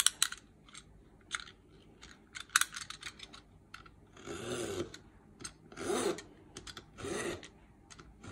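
Snap-off utility knife cutting a printed sheet along a steel ruler on a cutting mat: a scatter of sharp clicks as the knife is handled, then three drawn cutting strokes, each about half a second long, about a second apart.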